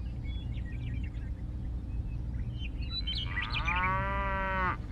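Steady low, rhythmic mechanical hum of a small engine, with a drawn-out pitched call starting about three seconds in that rises slightly, holds for over a second and cuts off suddenly.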